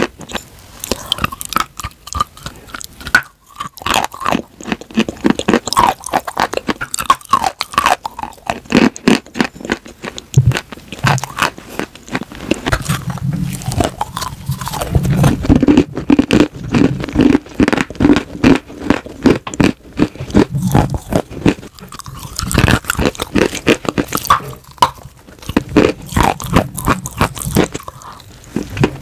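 Close-miked biting, crunching and chewing of a crumbly white chalk block: dense, irregular dry crackles that keep on without a pause.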